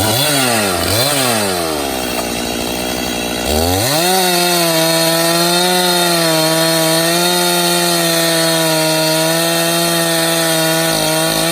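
Stihl MS391 two-stroke chainsaw revved twice in quick succession, dropped to idle, then opened to full throttle about three and a half seconds in and held at steady high revs cutting into hickory wood.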